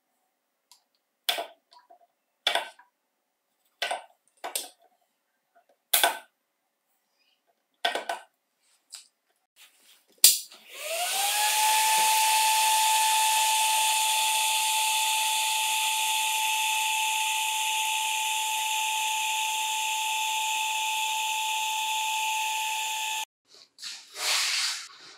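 A string of sharp snaps from a battery spot welder, then a click and the Electrolux Ergorapido's motor and fan spinning up with a quickly rising whine and running steadily on the new LG 18650 cells before cutting off suddenly. The motor is being test-run on the replacement battery.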